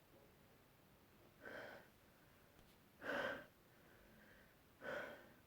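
A person's short breathy bursts in a sneezing fit: three in a row, about a second and a half apart, the middle one loudest.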